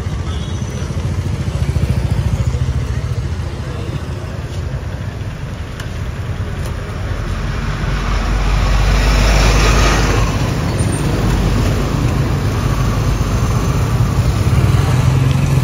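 Street traffic at close range: scooter and motorcycle engines idling and pulling away. About eight seconds in, one vehicle passes close, rising and fading over a couple of seconds.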